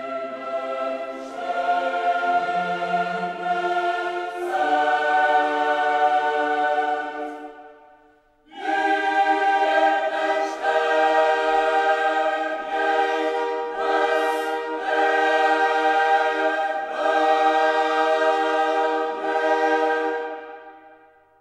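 Background music: a choir singing slow, long-held chords. It fades out about eight seconds in, comes back a moment later, and fades out again near the end.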